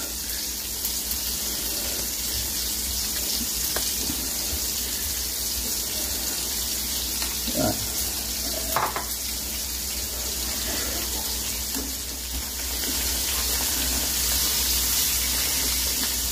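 Pieces of once-sun-dried cá dứa (catfish) frying in oil in a steel wok, giving a steady hissing sizzle that grows a little louder about three-quarters of the way through.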